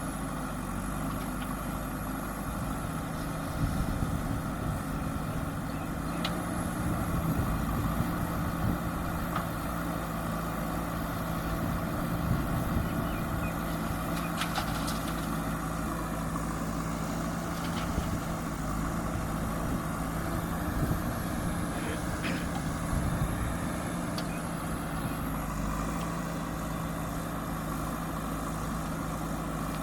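A JCB backhoe loader's diesel engine running steadily, with a few short knocks and clunks at irregular moments.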